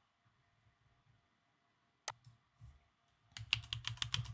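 Typing on a computer keyboard: a single click about two seconds in, then a quick run of keystrokes near the end.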